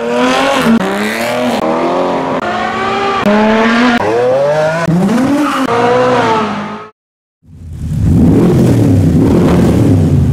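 High-performance car engines revving and accelerating hard, in a quick series of cut-together clips with the engine pitch climbing and falling. After a short silence comes a low rumbling swell.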